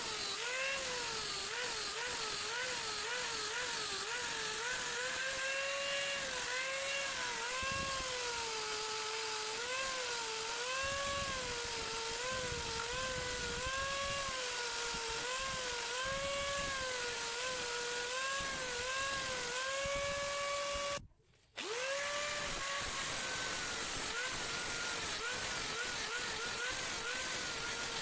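An electric grinding machine whining as it is pressed against a wooden knife handle to shape it. Its pitch repeatedly sags under load and recovers. The sound cuts out briefly about three quarters of the way through.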